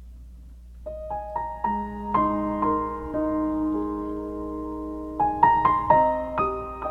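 Gentle piano music starts about a second in, slow sustained notes that ring on, with a quicker run of notes near the end.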